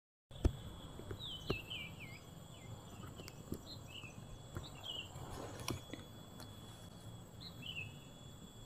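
Quiet outdoor ambience with a series of short, high chirps that slide downward, clustered in the first few seconds with one more near the end. A faint steady high tone and a few faint clicks lie under them.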